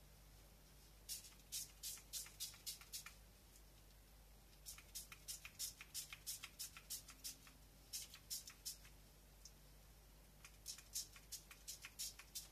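Salt sprinkled by pinch over shaped salt-bread rolls on a paper-lined baking tray: light, crisp ticks of grains landing, several a second, in three spells.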